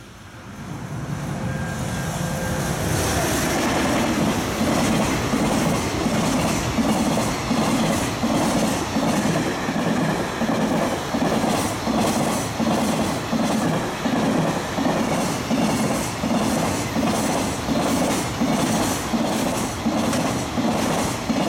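JR Freight EF210 electric locomotive approaching and passing at close to 110 km/h, the sound building over the first few seconds. Then a long high-speed container freight train goes by with a steady, rhythmic clickety-clack of wheels over rail joints, just under two beats a second.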